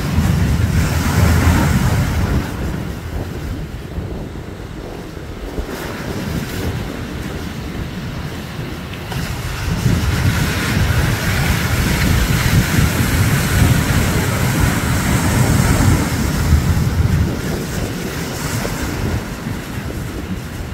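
Ocean surf breaking over rocks on the shore. The wash is loud at the start, eases off, then builds again for several seconds from about halfway through.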